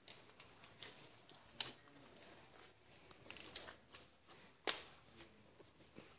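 Borax slime being kneaded and squeezed by hand, giving faint irregular sticky squishes and clicks, two of them sharper, about a second and a half and almost five seconds in.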